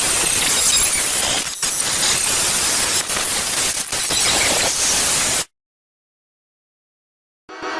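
Loud, even hiss of static white noise, briefly dipping about a second and a half in, then cutting off suddenly to dead silence about five and a half seconds in. A quieter sound with wavering pitch starts just before the end.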